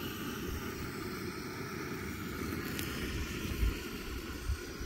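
Canister gas camp stove burning under a pot of water, a steady hissing roar.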